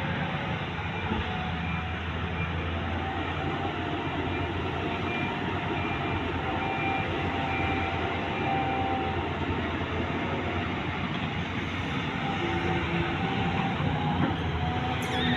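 Volvo EC210B excavator's diesel engine running steadily under working load, with faint whining tones that come and go, and a sharp knock near the end.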